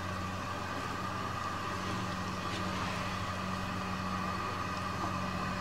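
A steady low hum with a constant hiss under it, unchanging throughout.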